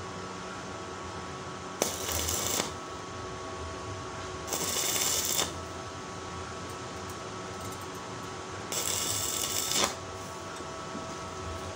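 Stick welder striking three short tack welds, each a crackling, sputtering arc of about a second, joining the thin steel strips of a hexagonal paving-block mould.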